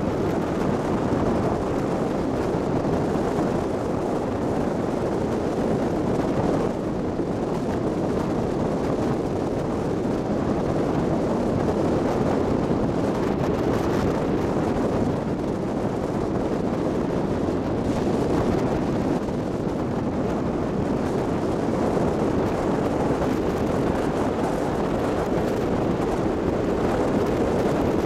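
Steady rumbling noise of a moving passenger ferry, its engine and the water rushing past the hull mixed with wind buffeting the microphone.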